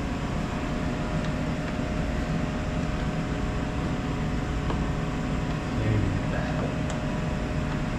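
Steady machine hum of a fan or air-conditioning unit, with a couple of faint light clicks of a fastener being worked by hand into a plastic fender.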